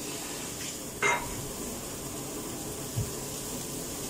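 Köfte sizzling in a frying pan, a steady frying hiss. A dish clinks once about a second in and something knocks softly near three seconds.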